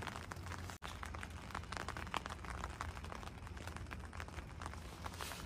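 Faint patter of light rain, scattered small ticks over a soft hiss, with a low steady hum underneath; the sound cuts out for an instant about a second in.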